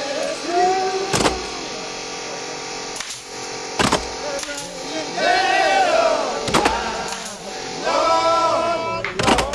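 Pneumatic nail gun firing into wooden ceiling boards, about four sharp shots a couple of seconds apart, over background music.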